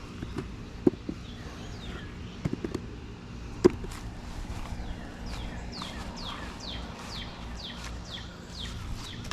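A bird singing a long run of short, repeated downslurred whistles, two or three a second, in the second half. Earlier, a few sharp knocks and taps from handling the dug soil, potatoes and pots.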